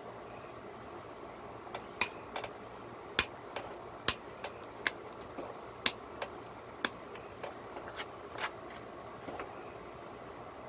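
Pressure flaking a slab of cherry quartz: a metal-tipped hand flaker pops small flakes off the edge, giving about a dozen sharp glassy clicks at irregular intervals from about two seconds in, the loudest in the first half.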